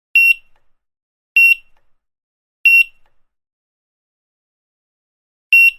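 Checkout barcode scanner beeping: four short, high single-pitch beeps. Three come about a second and a quarter apart, then after a pause a fourth comes near the end.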